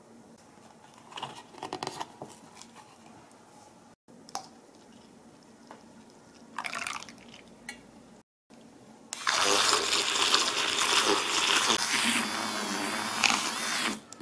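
A handheld electric milk frother whirring steadily in a bowl of creamy liquid for about five seconds in the second half, the loudest sound. Before it, a few quieter strokes and clicks of a silicone whisk in a glass bowl.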